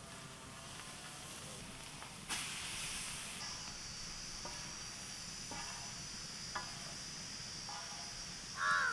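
Prawns hissing as they fry on a hot tawa, with a sudden louder rush of hissing about two seconds in that settles into a steady high hiss.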